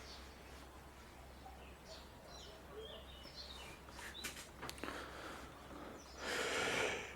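Quiet background with faint bird chirps and a few light clicks, then a short burst of noise, about a second long, near the end.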